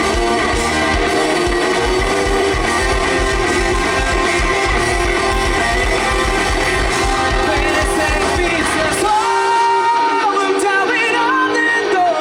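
Live rock band playing loud, with a pounding drum beat, electric guitars and singing. About nine seconds in the drums and bass drop out, leaving held, bending higher notes.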